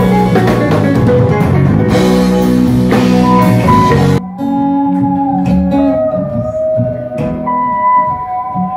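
Live band music, with bass guitar, keyboard and drums playing together. About four seconds in it breaks off abruptly into a sparser passage of long held electric guitar notes that bend in pitch over keyboard.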